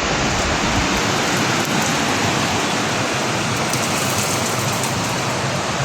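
Heavy rain falling steadily, a dense continuous hiss of rain on surfaces.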